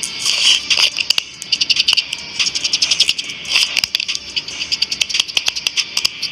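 Small hand tools clicking and scraping on phone parts: a rapid, irregular run of sharp little clicks with light scraping between them.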